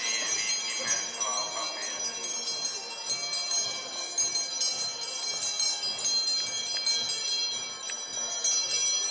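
Small handbells jingling steadily, with many bright ringing tones held throughout, as carried in a Catholic procession.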